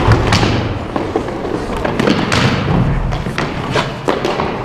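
Close-up ball hockey play: repeated thumps and clacks of sticks, ball and players hitting the boards and the net in a scramble for the ball.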